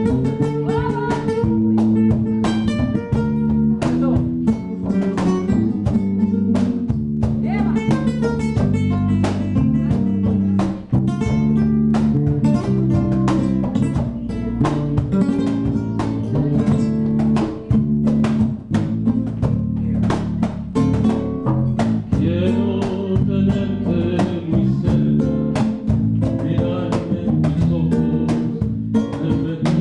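Acoustic guitar playing a lead melody over a cajón beat, a live band instrumental.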